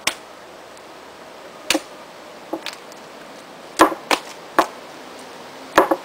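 Lumps of stoneware clay slapped down hard onto a wedging slab, six or so sharp smacks at uneven intervals, three of them close together past the middle. This is slap-wedging: soft recycled clay and stiffer bag clay are stacked at right angles to even out the clay's consistency.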